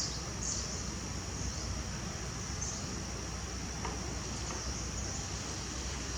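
Insects droning steadily, a continuous high-pitched buzz, over a low, constant outdoor rumble.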